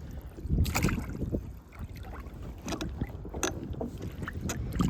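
Handling noises aboard a fishing kayak: several sharp knocks and clicks against the hull over low water and wind rumble.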